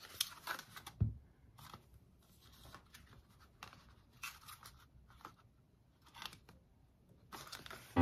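Cardboard chocolate-bar boxes being handled: light, irregular rustles, scrapes and taps of paperboard in the hands, with a soft thump about a second in.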